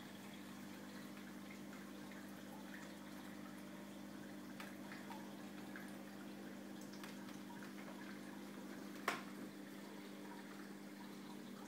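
Reef aquarium running: a steady low hum from its pumps with faint water trickling and dripping. One sharp click about nine seconds in.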